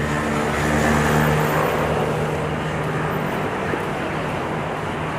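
Street traffic: a motor vehicle's engine running close by with a steady low hum, swelling about a second in and easing off, over general road noise.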